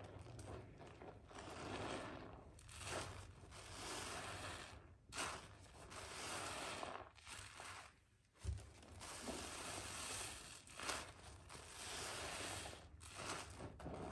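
Hands squeezing and crushing soaked, mushy Palmolive soap and a foam-covered sponge in a tub of sudsy water: wet squishing in repeated swells. A short lull about eight seconds in ends with a sharp splat.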